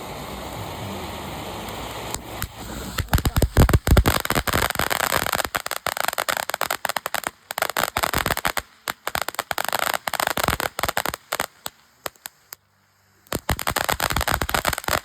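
Consumer firework going off: a steady hiss, then from about two seconds in a dense run of rapid crackling pops, the loudest cracks around three to four seconds in. The crackling breaks off briefly near twelve seconds and resumes.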